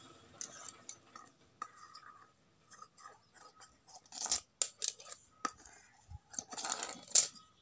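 Large tailor's scissors cutting through folded cloth: scattered sharp blade clicks, with a denser run of snips and cloth scraping near the end.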